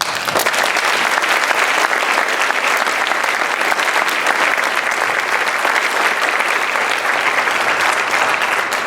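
Audience applauding steadily, a crowd clapping in a large hall, starting right after the first veteran's name is called and fading out near the end.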